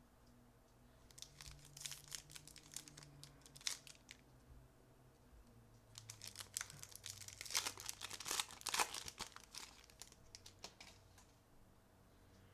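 Plastic trading-card pack wrapper crinkling and tearing as a pack of Topps 2020 Baseball Update Series cards is torn open, in two spells of dense crackling, with a short lull between them.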